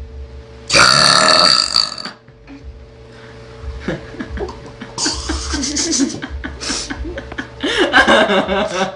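A young woman burping loudly, with one long burp about a second in and more burps later.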